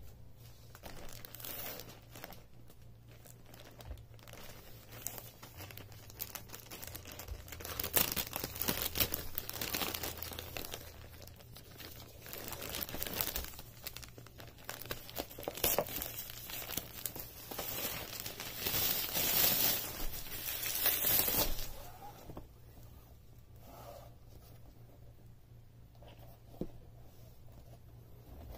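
Plastic shipping pouch being snipped with scissors, torn and crinkled by hand in irregular bursts of rustling. The rustling dies down about three-quarters of the way through, leaving quieter handling and a light knock near the end.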